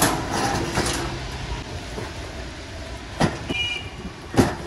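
Cartons of goods being unloaded by hand: a rumbling, scraping shuffle, then two sharp knocks a little after three seconds and again about a second later.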